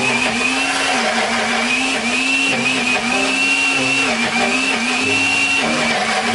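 Small personal blender grinding a chilli and spice paste with water: a loud, steady motor whine that dips and rises slightly in pitch as the load in the jar shifts.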